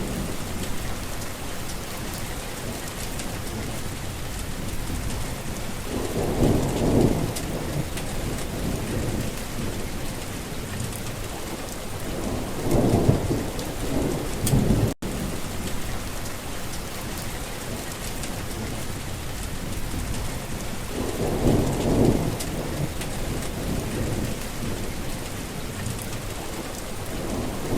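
Heavy rain falling steadily in a thunderstorm, with low rolls of thunder swelling and fading every several seconds, three times plus another starting at the end. The sound cuts out for a split second about halfway through.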